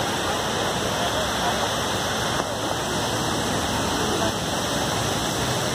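Steady rush of falling water from the World Trade Center memorial reflecting pool's waterfall, water pouring down the pool walls in an even, unbroken wash of noise.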